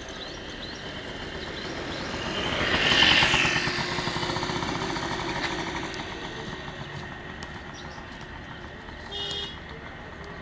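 A motor vehicle engine passing on the road, growing louder to a peak about three seconds in and then fading away. A short horn toot sounds near the end.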